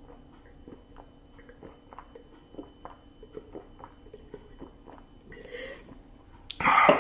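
A person gulping down a thick protein shake from a cup, a run of quick, soft swallowing clicks. A short, loud burst of sound comes near the end as he finishes.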